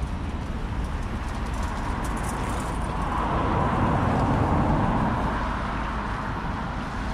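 Urban street traffic: a steady rumble of road noise, with a vehicle passing close by, swelling up around the middle and fading away again.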